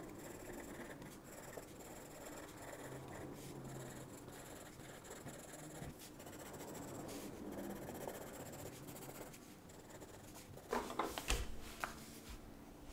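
Coloured pencil scratching and rubbing on sketchbook paper while shading in a drawing, then a short cluster of sharp clicks and knocks near the end.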